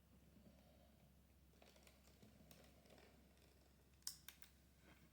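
Faint small clicks and taps from a screwdriver and plastic parts while a screw is undone on a laptop's display assembly, with a sharper couple of clicks about four seconds in.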